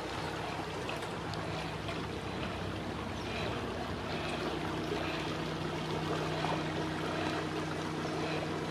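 River cruiser's engine running with a steady hum that grows slightly stronger in the second half, over a constant rush of moving water.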